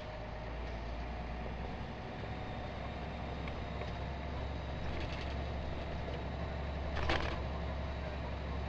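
Scania truck's engine running with a steady low drone, heard from inside the cab while driving slowly. A short, sharp burst of noise stands out about seven seconds in, with a fainter one a couple of seconds earlier.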